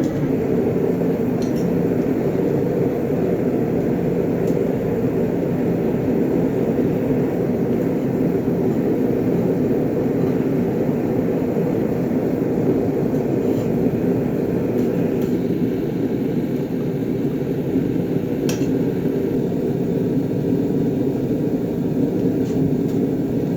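A forge running with a steady, even rushing noise while a knife blade is heated for hardening, with a few faint clicks.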